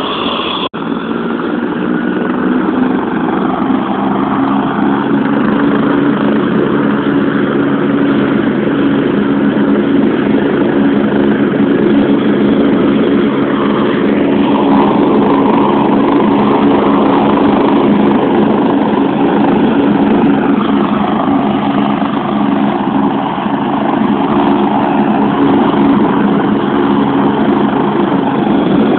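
Helicopter running on the ground, its turbine engines and turning rotor making a steady drone. The sound drops out for an instant about a second in.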